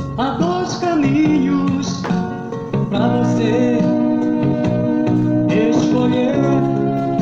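Brazilian Christian pop music from a cassette tape: a passage with guitar over sustained chords and a wavering melodic lead, with no sung words.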